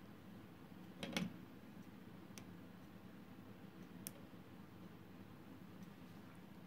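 A few light clicks and taps as hands handle small circuit boards on a wooden table, the loudest a short rattle of clicks about a second in, then two single ticks, over a low steady hum.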